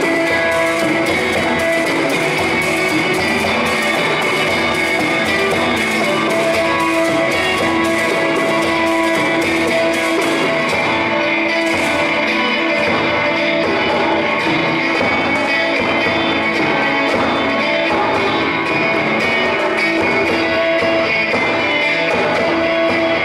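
A small live combo playing, led by guitar, with a steady rhythm of plucked or strummed strokes over a held drone note.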